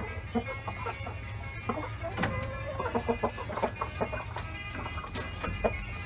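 Chickens clucking, with many short calls coming one after another.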